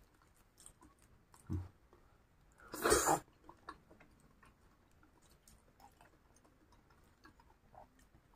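Faint close-up chewing and mouth sounds of someone eating egg-coated fried cilor (tapioca) skewers, with small scattered clicks. A short, louder noisy burst comes about three seconds in.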